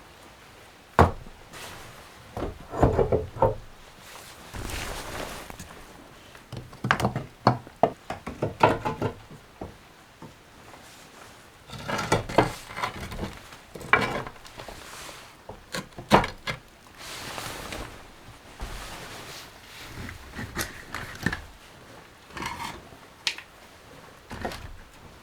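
Irregular knocks, thunks and clatter of objects being handled and set down, with shuffling between them, in a small room.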